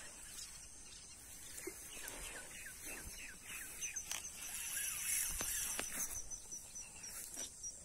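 Outdoor ambience with birds calling: a run of short falling chirps, about four a second, then a quick, regular series of short high notes, over a steady high insect buzz. A few faint knocks sound in between.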